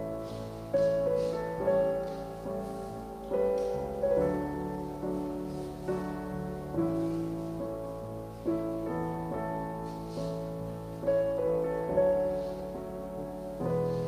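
Slow piano music: chords and a melody line, each note struck and left to fade before the next.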